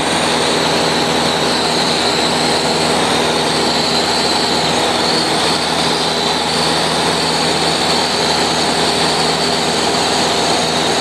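Cessna 150's four-cylinder Continental O-200 engine and propeller droning steadily in flight, heard from inside the cabin with a constant rush of wind.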